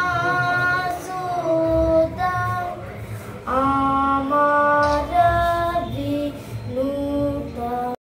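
A boy singing a devotional song to Ganesha, held notes that step up and down in pitch, with a short break about three seconds in. The singing cuts off abruptly at the very end.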